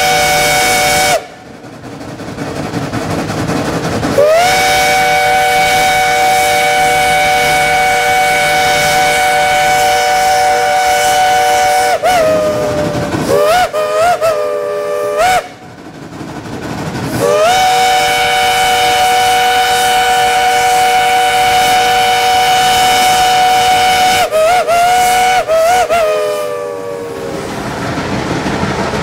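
Shay geared steam locomotive's chime whistle, a chord of several notes, sounded in long blasts. The pitch slides up as each blast opens, and each long blast is followed by four quick toots. A blast cuts off about a second in, and rushing hiss fills the gaps between blasts.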